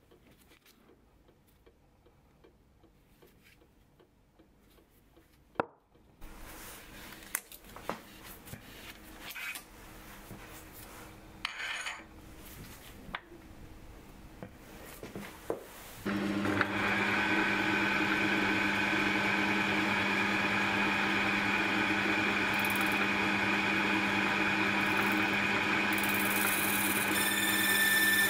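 Small clicks and rubbing from hands handling metal parts. About sixteen seconds in, a Myford lathe starts and runs steadily with a constant hum, and a high hiss joins near the end.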